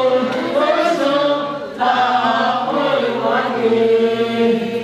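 A group of men and women singing a song together, holding long notes, with a brief breath pause about two seconds in.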